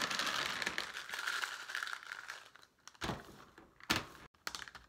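Clay LECA pebbles rattling and spilling out of a plastic pot onto a plastic tray as a plant's roots are pulled free: a dense crackle that fades out after about two and a half seconds. Then come two sharp knocks about a second apart as the plastic pot is handled against the tray.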